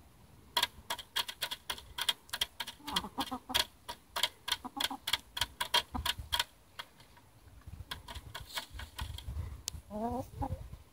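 Rapid sharp clicks, about four a second, of hens' beaks pecking at a hanging bucket waterer as they drink, dying away after about six seconds. A hen gives a short cluck near the end.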